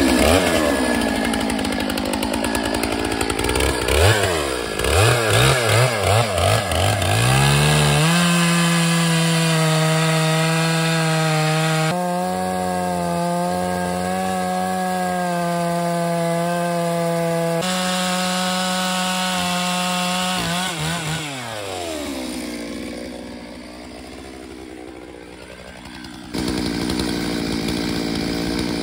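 Stihl MS 881 single-cylinder two-stroke chainsaw revving in a few quick throttle blips, then held at a steady high pitch at full throttle as its bar cuts through an oak log. Near the end the pitch falls as it comes off the throttle, and the sound then switches abruptly to a steady, noisier running.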